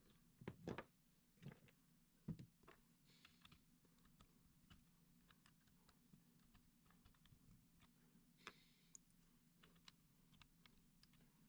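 Near silence with faint, scattered light clicks and taps, a few slightly louder ones in the first couple of seconds, over a low steady hum.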